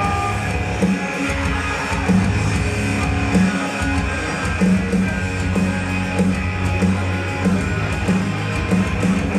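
Rock music with guitar over a steady, driving bass beat.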